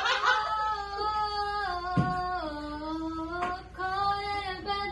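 A woman's voice singing a tune in long, held notes that step up and down in pitch, with a short break for breath part-way through. A brief thump sounds about two seconds in.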